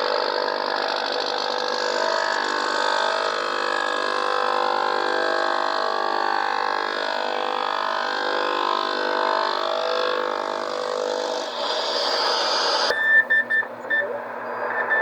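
Shortwave radio reception from an Icom IC-735 receiver: a crowded, hissy signal with many steady whistles and wavering tones. About two seconds before the end it changes abruptly to a pulsing, beeping data signal of two steady tones.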